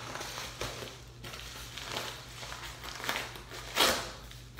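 A yellow padded paper mailer crinkles and rustles as it is cut open with a knife and pulled apart. There is a louder short rip or crackle near the end.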